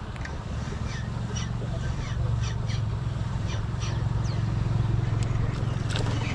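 A steady low motor drone that swells a little through the middle, with short bird chirps over it.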